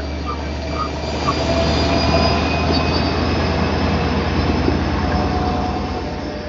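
Long Island Rail Road train running past on the rails: a steady rush of wheel and rail noise with thin, steady high squealing tones over it, easing slightly near the end.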